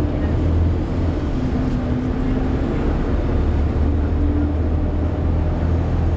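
Inside a moving Volvo B7TL double-decker bus: a steady low engine drone with the cooling fan hoovering, a humming tone that drifts slowly up and down in pitch.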